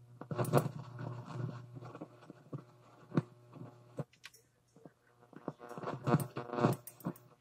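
Guitar amplifier buzzing as an instrument cable's loose end picks up electrical interference from a nearby plasma ball. There is a steady low hum under irregular, louder crackling buzzes, strongest about half a second in and again around six to seven seconds in.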